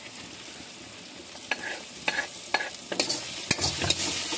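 Chopped onion and green chilli sizzling in hot oil in a pan, with a spoon knocking against the pan about twice a second from about a second and a half in. The sizzle grows louder near the end.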